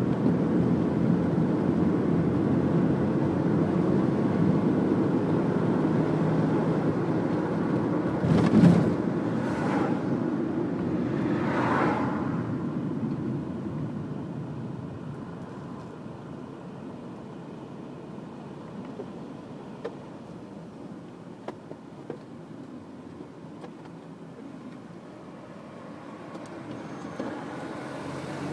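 Car driving in city traffic, heard from on board: steady engine and tyre noise, with two brief louder swells about a third of the way in. The noise drops to a quieter, steady level about halfway through as the car slows.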